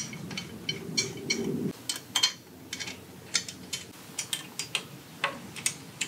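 Irregular metallic clinks and taps as the steel tube frame parts and hardware of a glider chair are handled and fitted together by hand.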